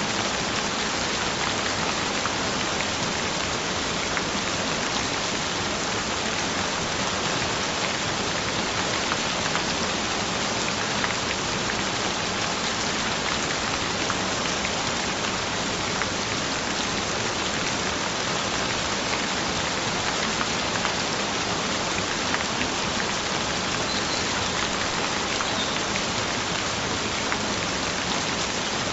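Steady rain falling on a surface, an even hiss with scattered small drop ticks.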